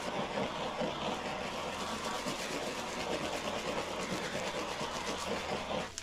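Handheld butane torch flame hissing steadily as it is swept over wet epoxy resin to pop surface bubbles; it stops just before the end.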